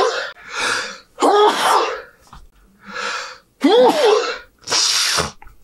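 A man's sneezing fit: a run of loud sneezes into the crook of his arm, about one every two seconds, each preceded by a quick, sharp intake of breath.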